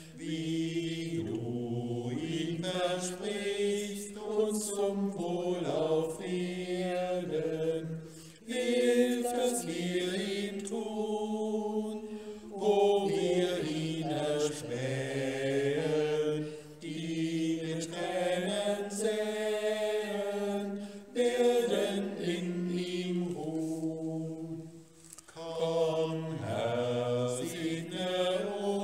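A German church hymn being sung in slow, held phrases with short breaks between them. These are the third verse's lines on peace.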